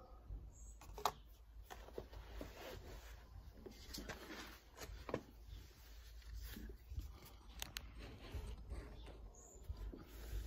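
Faint scattered clicks, taps and rustles from handling small objects, over a low steady rumble.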